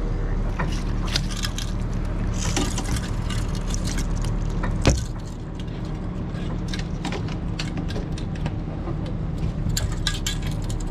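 A boat motor running steadily at idle, with scattered knocks and clatter of the landing net and fishing tackle against the boat as a chinook is lifted aboard; one sharp knock about five seconds in is the loudest sound.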